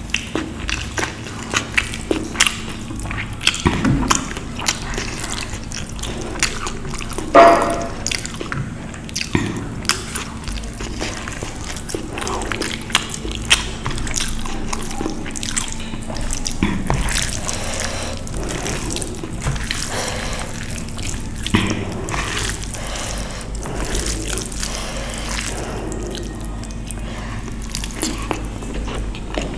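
Close-up wet eating sounds: rice and curry squelching as they are mixed by hand, then chewed with frequent lip smacks and sticky mouth clicks, one louder wet sound about seven seconds in. A faint steady low hum runs underneath.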